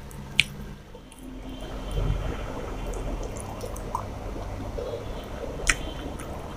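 Rice and chicken curry being mixed by hand on a steel plate and eaten, with two sharp clicks, one just after the start and one near the end.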